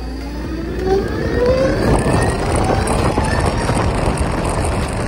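Zero S electric motorcycle's motor whining as it accelerates, the whine rising in pitch over the first two seconds. Wind and road noise build as the bike picks up speed.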